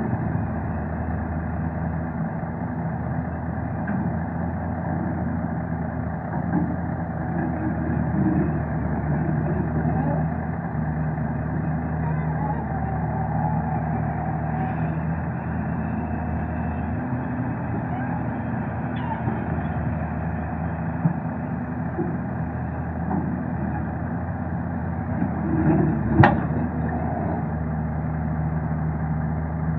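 Hyundai 220 excavator's diesel engine running steadily under working load, rising and falling a little in level, with one sharp knock late on.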